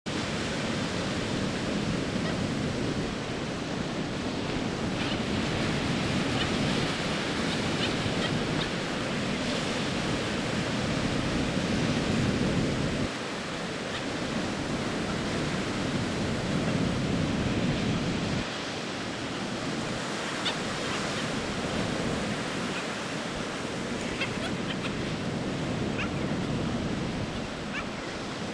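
Surf washing on a beach in a steady rush, with wind rumbling on the microphone that eases a little about halfway through.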